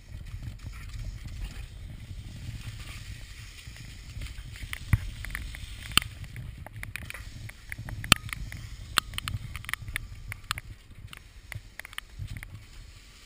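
Garden hose water spraying and splashing onto a wet concrete patio over a low rumble, with a string of sharp taps and knocks from about five seconds in as a dog scrambles on the wet slab right by the camera.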